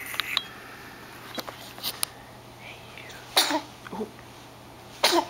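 Two sharp sneezes about a second and a half apart, after a few small clicks.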